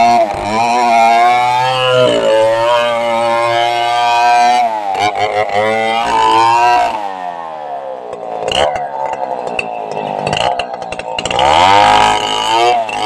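Stihl chainsaw ripping lengthwise through a log at high revs, its pitch dipping again and again as it loads up in the cut. About seven seconds in the throttle is let off and the engine drops to idle, then it revs back up near the end.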